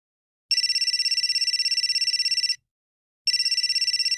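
Cell phone ringtone: a high, rapidly trilling electronic ring lasting about two seconds, a short pause, then a second ring.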